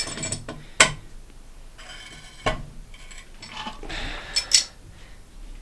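Clicks and clatter of plastic cistern fittings being handled and adjusted inside a ceramic toilet tank, with a few sharp knocks and scraping between them.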